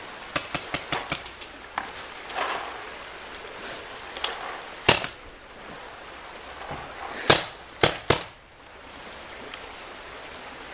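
Paintball markers firing: a rapid string of shots in the first second and a half, then single shots scattered through the rest, the loudest about five and seven seconds in. A steady rush of running water lies underneath.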